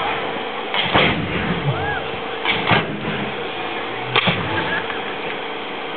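Pyranoscope flame sculptures firing in sudden loud bursts: one about a second in, two in quick succession around two and a half seconds, and one more just past four seconds, over a crowd murmur.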